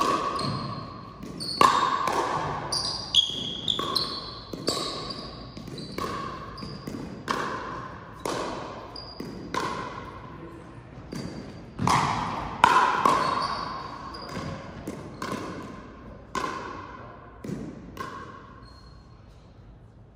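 A fast rally of ball and racket or paddle hits and bounces, about one sharp hit every second, each echoing in a large hall, with brief high squeaks between some of them; the hits thin out near the end.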